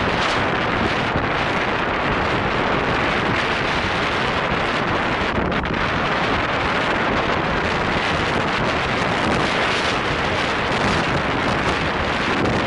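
Wind blowing across the microphone: a steady, loud rushing noise with no separate events.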